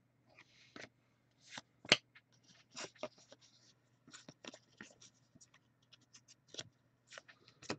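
Trading cards being handled: a faint run of light scrapes and clicks as cardboard cards slide against one another off a stack, with one sharper click about two seconds in.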